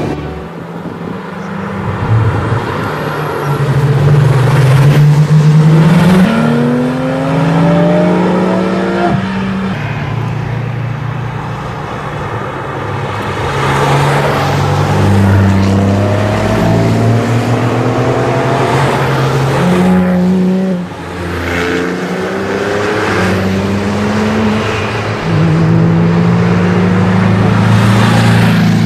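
Several Porsche sports cars accelerating past one after another, their engine notes rising through the revs and dropping back at gear changes, with more than one car heard at once from about the middle on.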